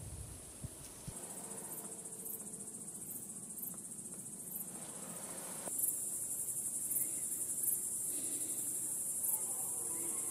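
Crickets chirring steadily in a continuous high-pitched band with faint regular pulses, growing louder about halfway through. A faint pitched call begins near the end.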